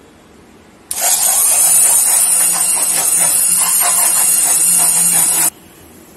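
Electric hand blender running in a steel pot of milk mixture, switched on about a second in and off about four and a half seconds later: a steady motor hum with a churning hiss from the liquid, blending out lumps of cornflour and stabiliser powder.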